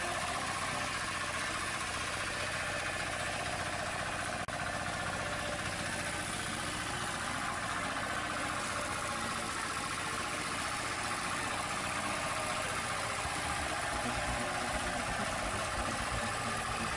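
Small engine of a walk-behind power tiller running steadily under load as its rotary tines work the soil.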